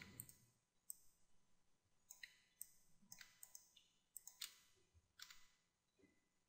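Faint, scattered clicks of a computer mouse and keyboard, about a dozen in all, with near silence between them.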